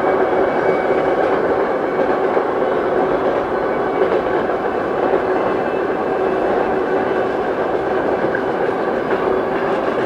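Freight train cars rolling along the rails with a steady rolling rumble and rail noise, which carries on evenly as the end of the train passes.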